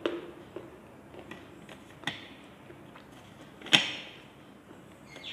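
Slate pencils clicking against each other and the tray as they are handled: a few separate sharp clicks, the loudest just before four seconds in.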